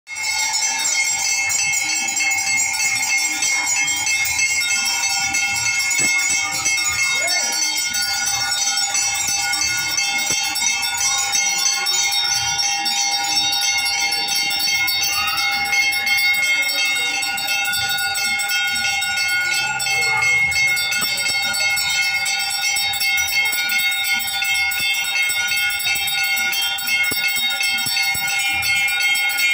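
Temple bells ringing continuously during an aarti, an unbroken metallic ringing with several tones held at an even level.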